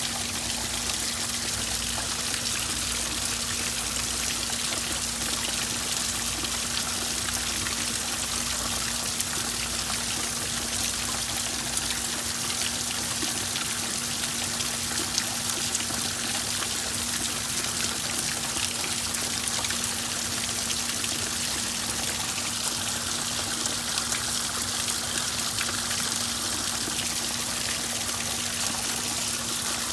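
Rain pattering on a garden pond while water splashes and trickles into it, first from a clay-pot spout and, partway through, over a small rock waterfall. A steady low hum runs underneath.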